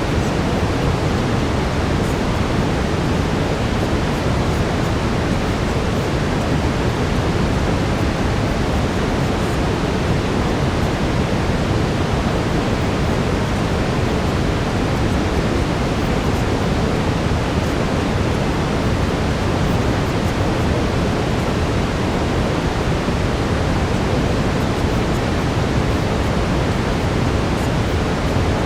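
Steady brown noise: an even, deep rushing hiss that does not change.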